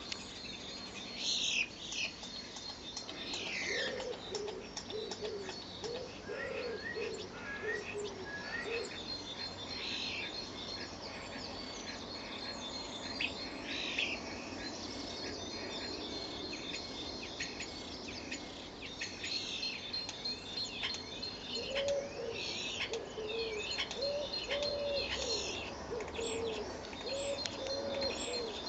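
Starlings chirping and whistling with many short, high calls. Two runs of low, repeated cooing notes come through, one after a few seconds and another near the end.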